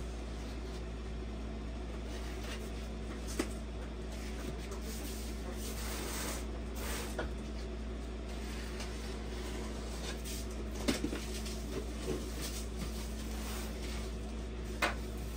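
Cardboard shipping box being opened by hand: scraping and rustling of the flaps and packing tape, with a few sharp knocks, over a steady low hum.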